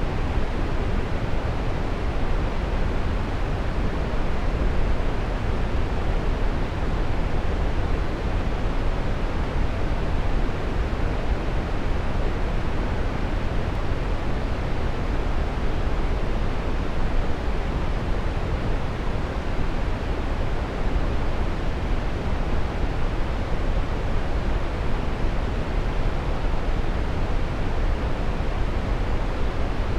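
Waterfall: water pouring and splashing in a steady, unbroken rush, heaviest in the low range.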